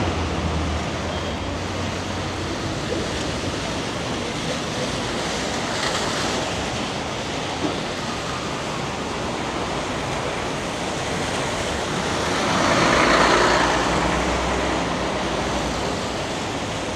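Steady hiss of city traffic on a rain-soaked street, tyres swishing on the wet road with the rain. A low engine hum near the start, and a passing vehicle swelling louder about three-quarters of the way through.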